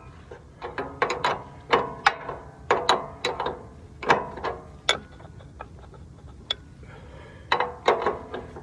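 Metal hand tool clicking and clinking in irregular runs as a nut is tightened down on a riding mower's drive belt tension spring bolt, with a quieter pause of about two seconds past the middle.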